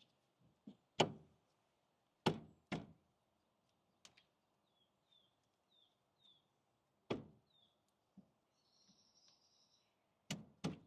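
Several separate hard clunks and knocks of metal brake parts being handled and fitted as a rear brake caliper is worked back into place over new pads. Between them are quieter gaps with a few faint high chirps.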